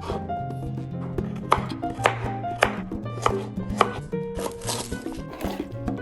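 Knife chopping food on a cutting board in a run of sharp, irregularly spaced strokes, over background music.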